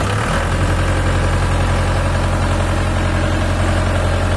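Jeepney's converted diesel engine running at a steady speed, a deep even drone that settles just after the start and holds without revving.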